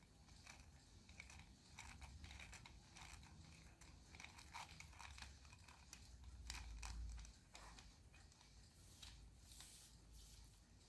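Faint irregular clicking and crinkling from hands handling things, with a soft low rumble swelling briefly past the middle.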